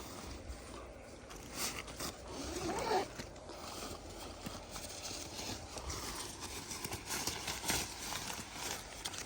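A tent being taken out and opened: nylon fabric and its bag rustling and scraping as they are handled, in small irregular crackles.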